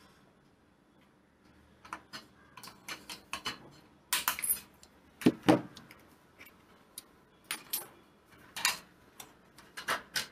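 Thin powder-coated GI sheet being handled and flexed on a cutting mat, with a scattered run of sharp clicks and crackles. Two louder knocks come about five seconds in.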